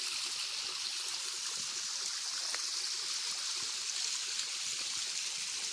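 Running water: a steady, even rushing hiss with no break.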